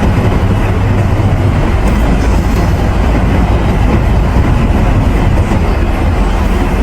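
Loud, steady road noise of a moving car heard from inside the cabin: tyres rumbling on the road with a deep low hum.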